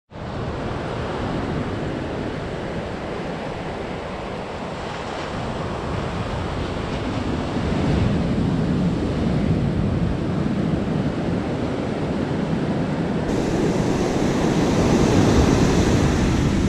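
Ocean surf breaking and washing up a sandy beach, with wind rumbling on the microphone. The surf grows louder about halfway through.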